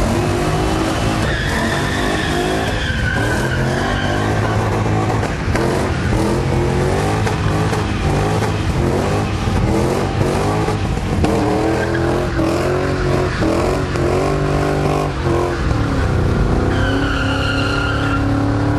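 Drift car's engine held at high revs, rising and falling, as its rear tyres spin and squeal in a smoky burnout. The tyre squeal is loudest in the first few seconds and again near the end.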